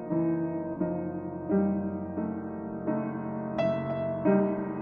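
Keyboard music in a piano sound, with a new chord struck about every three quarters of a second and a brighter, higher chord near the end.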